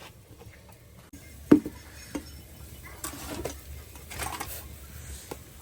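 Cooking pot and utensils knocking and scraping, with one sharp knock about a second and a half in and two short scraping stretches later on.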